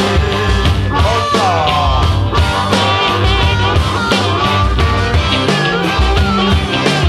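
Raw electric blues-rock recording: electric guitar over drums keeping a steady beat, with a guitar slide bending down in pitch about a second in.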